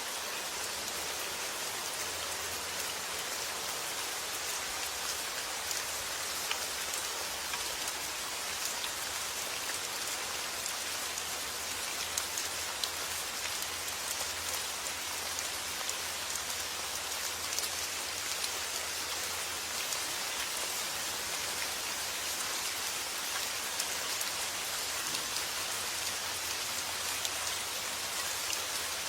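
Steady summer rain falling and pattering on surfaces, an even hiss with fine scattered drop ticks throughout.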